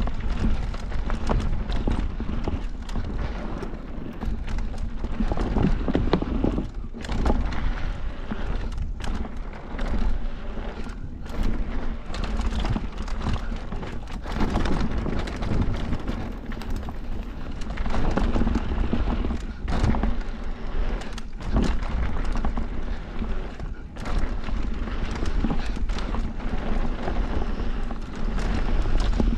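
Cannondale electric mountain bike descending a rough bike-park trail: tyres rolling and crunching over dirt and rocks, with irregular knocks and rattles from the bike over the bumps, and wind buffeting the camera microphone.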